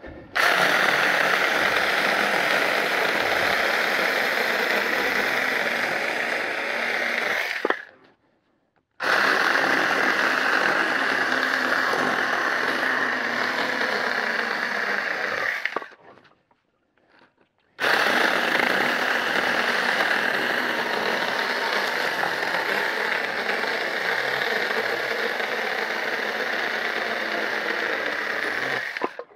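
A 4-inch handheld battery-powered mini chainsaw running as it cuts through a long pole for firewood, a steady high motor-and-chain whine. It runs in three long stretches and cuts off sharply between them.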